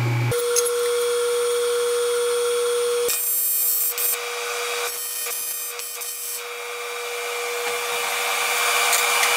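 AC TIG welding arc on aluminium from a PrimeWeld 325X, laying tack welds: a steady buzzing hum over a hiss. It starts about a third of a second in, and its texture changes about three seconds in and again a little after six seconds.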